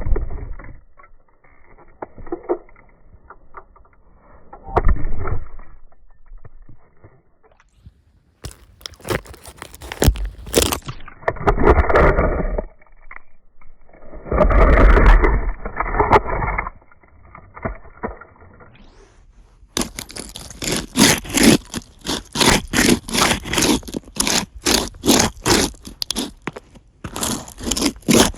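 Rubber soles of Converse safety shoes stomping, twisting and grinding small toy cars against asphalt: scraping with cracks and crunches. In the last third it turns into a quick, rhythmic run of scrapes, about three a second.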